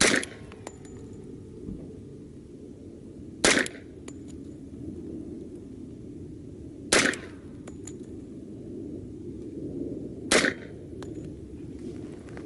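Four single shots from an H&K USP Tactical .45 ACP pistol fitted with a suppressor, spaced about three and a half seconds apart. Each is a sharp report with a short ringing tail.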